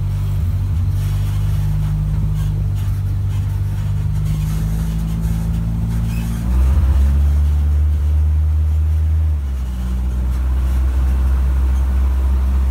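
Engine of an open-sided airport shuttle tram running as it drives, a steady low drone that gets louder and higher about six and a half seconds in and eases back about three seconds later.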